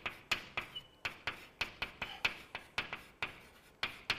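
Writing on a board: a run of sharp taps and light scrapes, about three a second, with a brief faint squeak about a second in.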